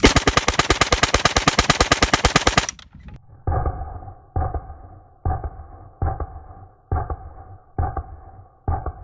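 Sten Mark II 9mm submachine gun firing one long full-auto burst, a rapid string of shots that stops a little under three seconds in. After that, background music with a steady beat.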